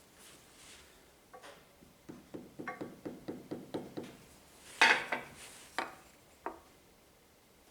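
A planer knife being tapped down into the cutter block of a Multico planer thicknesser to lower its setting: a quick run of about eight light taps, then a sharper knock about five seconds in and two more single taps.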